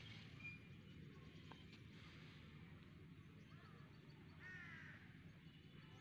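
Faint bird calls over a quiet outdoor background: a brief high call near the start, a short call about three and a half seconds in, and a stronger harsh call a second later.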